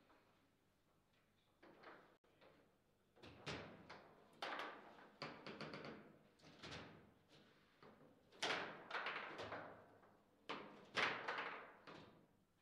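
Table football (foosball) in play: irregular sharp knocks and clacks as the ball is struck by the plastic rod-mounted figures and bangs against the table, after a quiet first second and a half.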